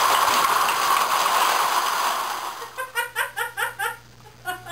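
A tower of about 1,200 small paper Dixie cups collapsing onto carpet: a dense rattling clatter of cups tumbling over each other that tapers away after about two and a half seconds. It is followed by quick short bursts of giggling.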